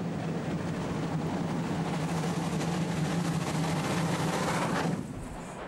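Steam locomotive working hard close by: a rapid run of exhaust beats over a steady low drone, growing louder, then dropping away abruptly about five seconds in.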